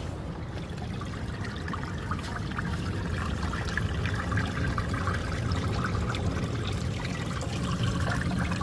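Small stream of water trickling and splashing steadily, with a low rumbling noise underneath.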